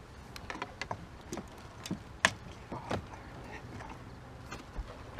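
Handling noise from fighting a hooked smallmouth bass from a small boat: a scatter of short clicks and knocks, the loudest a little past two seconds in.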